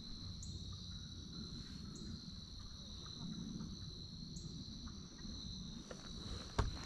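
Crickets trilling in a steady, unbroken high chorus. A single sharp knock sounds near the end.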